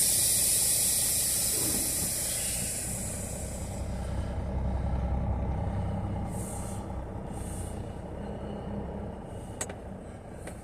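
Long hiss of compressed air from a semi truck's air brake system, fading away over about four seconds, over the low rumble of the idling diesel engine.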